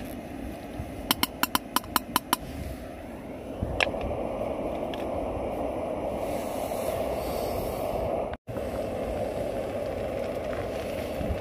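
A metal spoon is tapped about eight times in quick succession on the rim of a metal camping pan, with one more knock a little later. After that comes the steady rushing of a gas camping-stove burner heating the pan of chilli.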